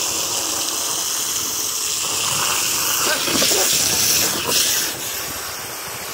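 Garden hose spray nozzle jetting water into a shallow collapsible plastic dog pool: a steady spray of water splashing onto water and the pool floor, a little louder in the middle and easing near the end.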